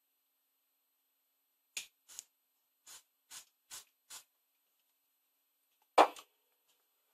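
Six short squirts of aerosol contact cleaner spray, each a fraction of a second, applied sparingly to a sticky potentiometer. About two seconds later comes a single louder knock.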